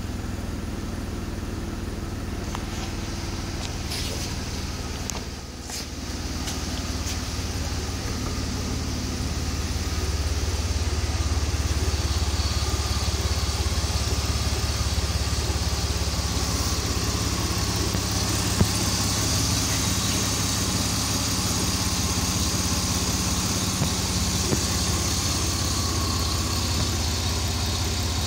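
2010 Chevrolet Impala's 3.5-litre V6 idling steadily, with a few sharp clicks around four to six seconds in, and growing louder from about ten seconds in.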